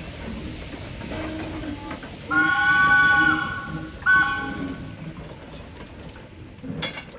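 Small 1911 0-4-0 steam locomotive sounding its steam whistle: a long blast of just over a second, then a short blast, each a shrill chord of several notes, over the chuff of its exhaust as it works. A sharp knock near the end.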